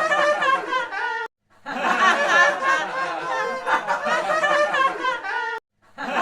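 High-pitched giggling and snickering laughter from several voices at once, as a soundtrack. It breaks off abruptly twice for a fraction of a second.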